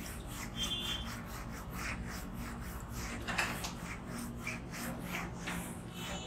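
Whiteboard duster wiping marker writing off a whiteboard in a string of quick back-and-forth rubbing strokes.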